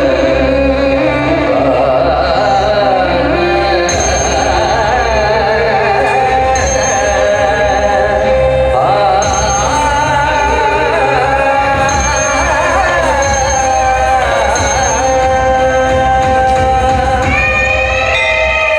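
Song music with a singing voice carrying a melody over steady accompaniment, playing continuously at a loud, even level.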